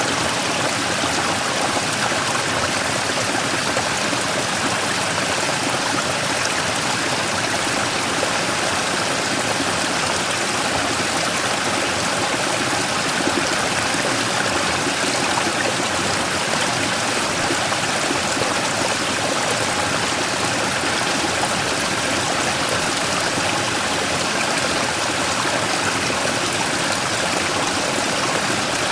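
Mountain stream splashing and gurgling over a large rock in a small waterfall, a steady rushing sound with no change.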